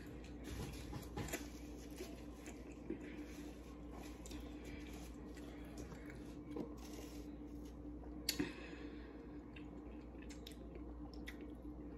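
Faint eating sounds: soft chewing with scattered small clicks, over a low steady hum.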